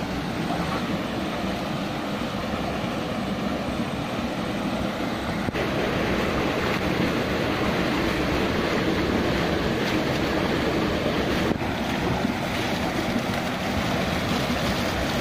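Water rushing steadily out through the opened sluice gate of a tiger-prawn pond as it is drained for harvest, a continuous whitewater rush that grows a little louder about five seconds in.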